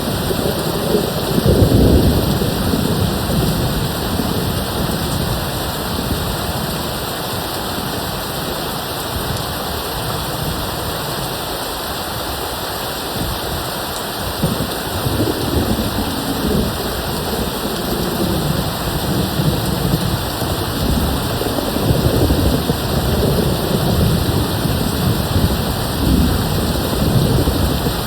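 Steady rain hissing, with distant thunder rumbling low: a rumble about two seconds in, a calmer stretch in the middle, then rolling rumbles again through the second half.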